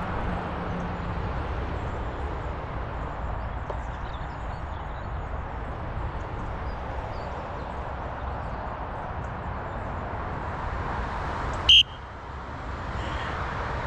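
Steady wind noise on the microphone outdoors, with one short, loud, high-pitched electronic beep near the end.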